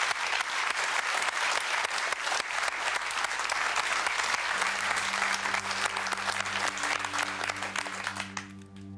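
Studio audience applauding, the clapping dying away near the end. About halfway through, a low held note of background music comes in under it.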